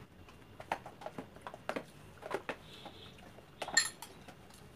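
Metal spoons scraping and tapping against plastic ice cream tubs: a scatter of light, irregular clicks, with one louder clink a little before the end.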